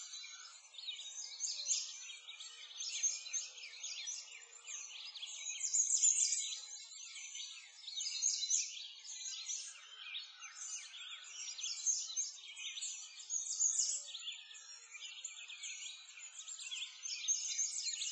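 Dense chorus of many small birds chirping and twittering without pause, rising and falling in loudness.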